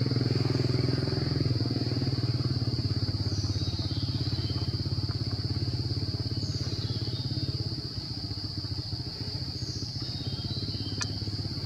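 A small engine running steadily nearby with a low, rapidly pulsing hum that eases off a little about eight seconds in. A steady high-pitched insect drone and a few short chirps sit above it.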